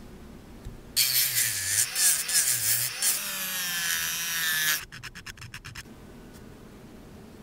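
Small pen-style rotary tool with a sanding drum grinding the edge of a small piece: a harsh grinding noise with a whine in it, starting about a second in and cutting off sharply after nearly four seconds. A few light ticks follow.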